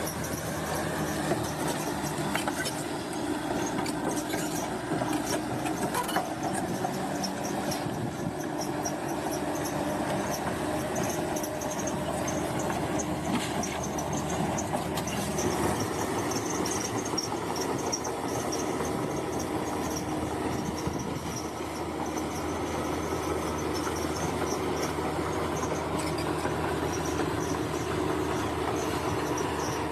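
Bulldozer at work: its diesel engine running steadily while the steel tracks clank and squeal.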